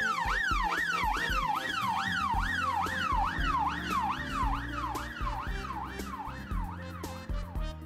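Emergency-vehicle siren in a fast yelp, its pitch sweeping up and down about three times a second, gradually fading and stopping shortly before the end. Background music with a steady beat plays underneath.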